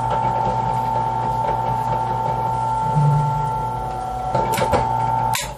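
A small electric motor running steadily with a hum and a whine, with a few clicks shortly before it cuts off suddenly near the end.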